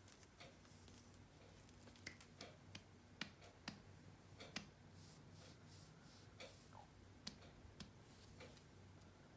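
Near silence: faint room tone with a low hum and about a dozen soft, scattered clicks and taps, most of them between two and eight seconds in.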